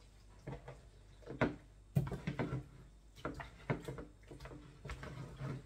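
Irregular knocks and light clatter of raw chicken pieces being handled and put into a cooking pot, the sharpest knocks about a second and a half and two seconds in.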